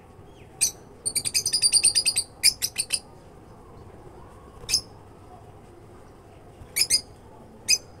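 Lovebirds chirping in short, sharp, high-pitched calls: a single chirp, then a fast run of about ten a second, a few more quick ones, and later scattered single and paired chirps.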